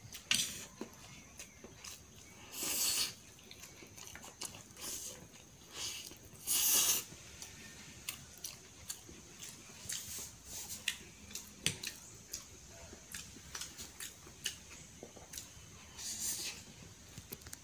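A person eating Maggi instant noodles: wet chewing and short mouth clicks throughout, with two louder half-second slurps of noodles, about two and a half and six and a half seconds in.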